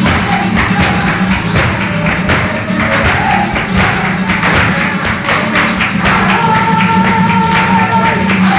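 Live flamenco: nylon-string guitar under dense, sharp percussive strikes from dancers' footwork and clapping. About six seconds in, a voice holds a long, wavering note over it.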